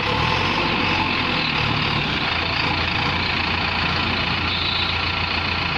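Diesel engine of a JCB 3DX backhoe loader running steadily.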